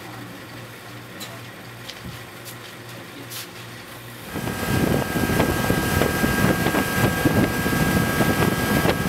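Yamaha 150 outboard motor running at speed on a boat under way, with water rushing and wind on the microphone. It cuts in loudly about four seconds in, after a quieter stretch of low steady hum with a few clicks.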